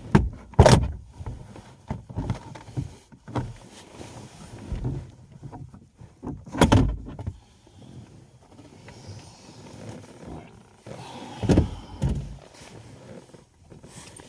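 Hands working around a car's interior trim and wiring: rustling and handling noise with short dull knocks, three of them louder, about half a second in, near the middle, and a couple of seconds before the end.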